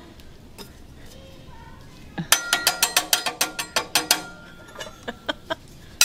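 Metal griddle spatulas clanged rapidly hibachi-style, a quick ringing run of about eight clinks a second for two seconds, then a few single clinks.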